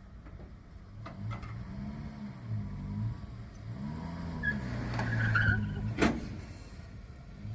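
Ford Ranger pickup's engine revving up and down several times as it strains to pull a large wood chipper, with a brief high squeal near the middle and one sharp knock about six seconds in.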